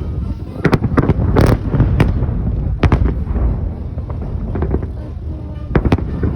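Fireworks salute going off: a quick run of sharp cracks and bangs in the first three seconds, then two more near the end, over a steady low rumble.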